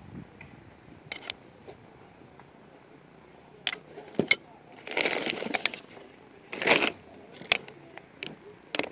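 Old metal hand tools and parts clinking and knocking together as they are rummaged through in a cardboard box, with two louder bursts of scraping and rustling around the middle.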